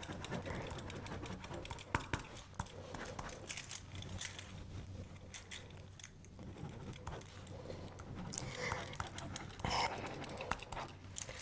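Faint, irregular small clicks and taps over a low steady hum, with a couple of slightly louder soft handling sounds near the end.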